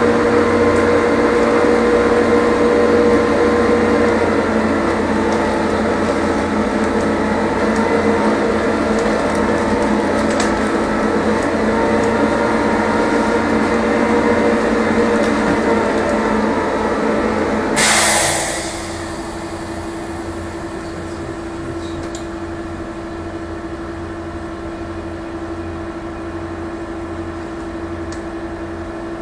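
Onboard air compressor of a stationary trolleybus running with a steady hum and whine, then cutting out about two-thirds of the way through with a short hiss of released air. A lower steady electrical hum remains after it stops.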